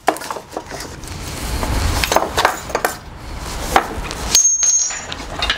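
Harbor Freight 1-ton steel shop crane being handled and shifted into place: a string of metal clanks and knocks over a low rumble, with a brief high squeak about four seconds in.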